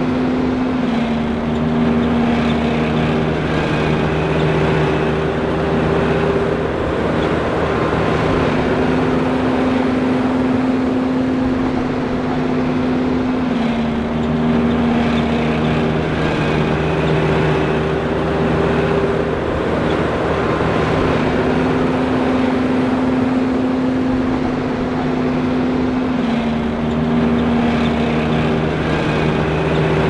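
John Deere 5820 self-propelled forage harvester running steadily, with a constant machine din and a whine that steps down and back up in pitch in a pattern repeating about every thirteen seconds.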